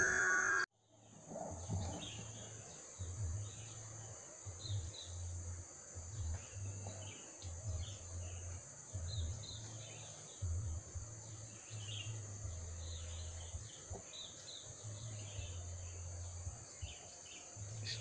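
Tree-canopy ambience: a steady high-pitched insect buzz with short chirps repeating every second or so, over a low rumble that comes and goes.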